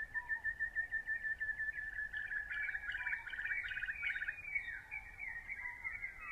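Birdsong: rapid, repeated high chirps and trills over a steady high note, thickest in the middle.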